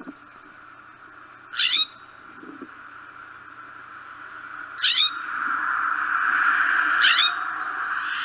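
California scrub jay giving three short, harsh, rasping calls a few seconds apart, over a steady background hiss that grows louder in the second half.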